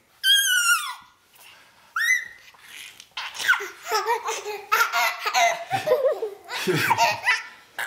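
A baby laughing: two high-pitched squeals in the first couple of seconds, then a long run of belly laughs and giggles, with an adult laughing along toward the end.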